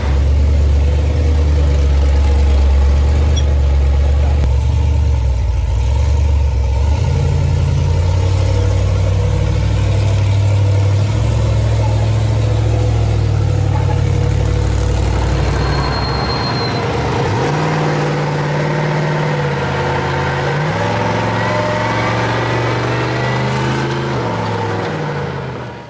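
Mid-engine prerunner race truck's engine running with a low, steady note as it creeps along, then accelerating hard about two-thirds of the way through, its pitch rising in steps as it shifts up through the gears.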